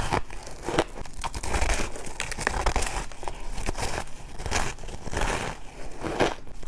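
Bites into a packed chunk of frosty crushed ice: a run of crisp crunches and crackles, with a stronger bite every second or so.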